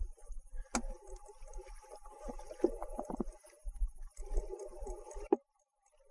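Wind buffeting the camera microphone in irregular low rumbles, with two sharp knocks, one about a second in and one near the end, after which the sound cuts out briefly.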